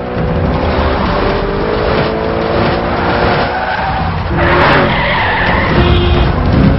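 Programme-bumper sound effects: a vehicle engine revving, its pitch climbing through the first few seconds, then a burst of rushing skid-like noise about four and a half seconds in, with music underneath.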